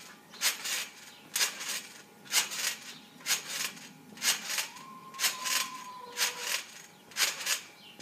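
Spring trampoline bouncing, with its springs and mat creaking and squeaking on each landing, about once a second, often as a quick double squeak.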